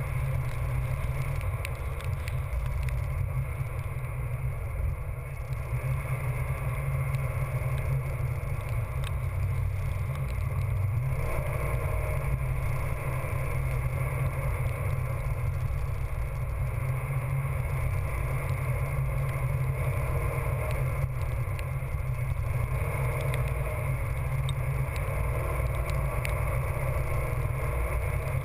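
Chase vehicle driving over wet beach sand: a steady low rumble of engine, tyres and wind that stays even throughout.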